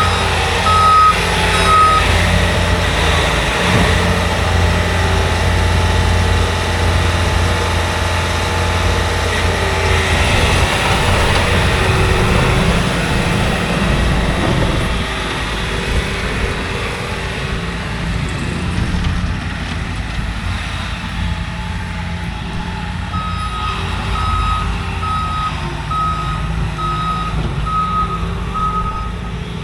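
Heavy work truck's diesel-type engine running with a low rumble, its reversing alarm beeping steadily in the first couple of seconds and again near the end while it backs up.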